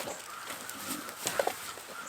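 Farm animals making short calls, the loudest a quick cluster of sharp notes about a second and a half in.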